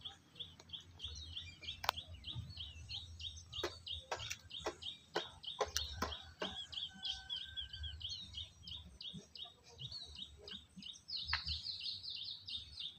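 A bird calling in a long run of short, evenly repeated chirps, about four a second, breaking into a quicker, higher run near the end. Scattered sharp clicks and a low rumble sit underneath.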